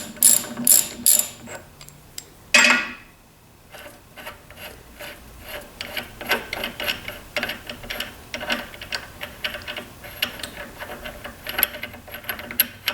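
Ratchet wrench clicking as a left-hand-threaded nut is backed off the lathe spindle. A run of sharp clicks, then one louder metallic clunk about two and a half seconds in, then lighter, quicker clicking.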